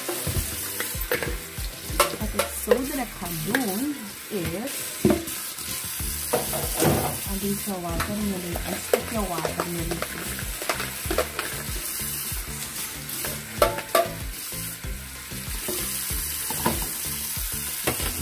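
Kitchen tap running steadily into a stainless steel sink while a plastic colander and plate are rinsed and handled under the stream, with scattered knocks of plastic against the sink.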